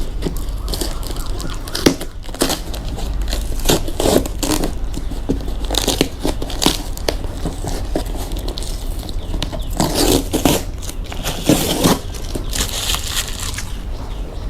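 Cardboard box and its packaging torn open by hand without scissors: irregular tearing, scraping and crinkling, heaviest about ten to twelve seconds in.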